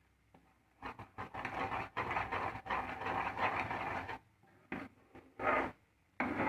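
Steel ladle scraping and stirring around a nonstick frying pan full of thick milk-powder batter being cooked down into mawa. A run of scratchy strokes breaks off about four seconds in, followed by a few short strokes.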